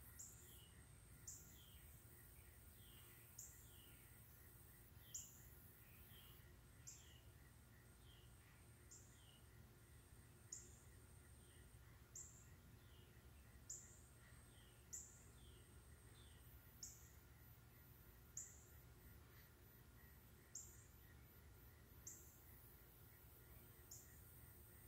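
Faint birdsong: a single bird repeating a short, high, falling chirp about every one and a half seconds, over a faint steady low hum.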